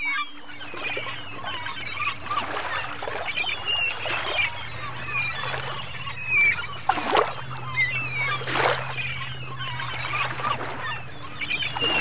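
A flock of gulls calling, many short squawks overlapping, with two louder noisy bursts about seven and eight and a half seconds in and a low steady hum underneath.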